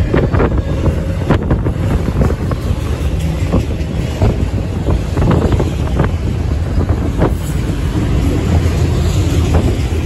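Freight train of autorack cars rolling past: a steady low rumble of steel wheels on the rails with scattered sharp clicks and clanks, and wind buffeting the microphone.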